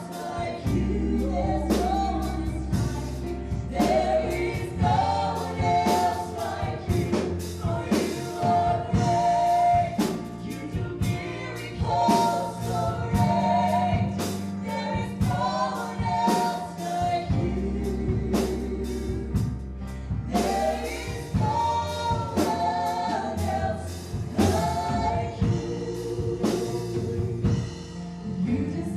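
Gospel-style worship music: a group of singers over a live band with a steady beat and sustained bass.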